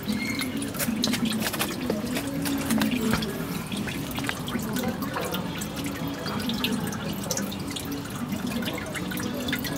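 E85 fuel dripping and dribbling from the car's fuel tank drain into a plastic drain pan as a rapid, irregular patter of drips. The tank is nearly empty, so the flow is down to drips.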